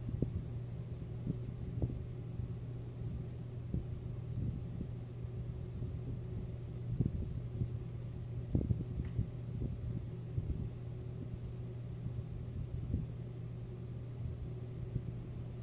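Distant thunder rolling low and unevenly after a lightning strike, with scattered soft low thumps over a steady low hum.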